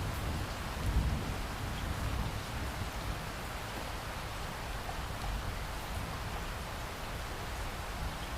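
Heavy rain pouring steadily, with a low rumble underneath that swells briefly about a second in.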